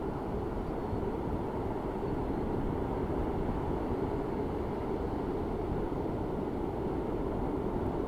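Steady low rumble of a cruise ship under way, even and unchanging.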